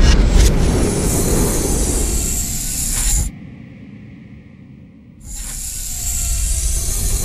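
Science-fiction spaceship sound effect: a loud hissing rush over a deep rumble that cuts out abruptly about three seconds in, leaving a faint hum, and swells back in about two seconds later.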